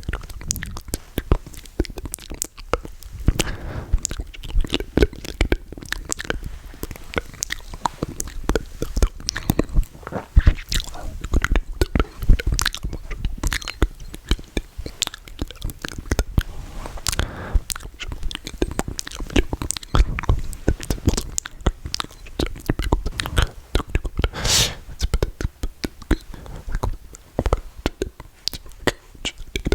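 Close-miked ASMR mouth sounds: a continuous run of wet clicks, smacks and pops, with no words.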